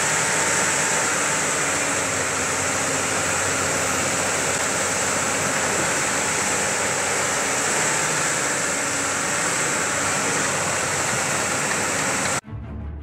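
Amphibious excavator on pontoon tracks running steadily, its engine under a heavy, even hiss of rushing noise; the sound cuts off suddenly near the end.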